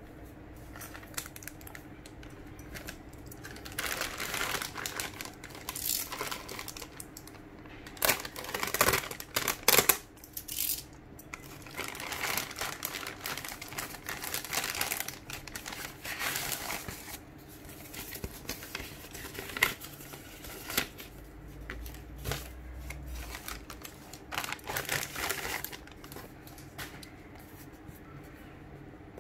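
A plastic courier mailer bag being torn open and crinkled by hand, in repeated bursts of rustling and tearing with short pauses between; the loudest bursts come about eight to ten seconds in.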